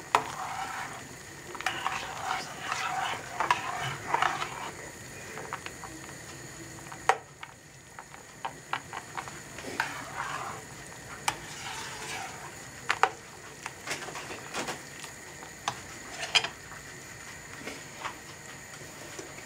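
Metal slotted spoon stirring cereal balls through liquid in a pot, swishing for a few seconds and then clicking and tapping against the pot's sides now and then.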